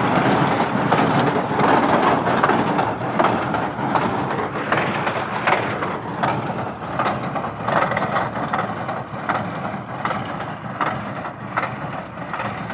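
A Sgorbati 133 S small square baler working hay behind an IMT 539 diesel tractor: a dense mechanical clatter with regular knocking, about two or three knocks a second, over the steady running of the tractor engine. The sound gets somewhat quieter in the second half.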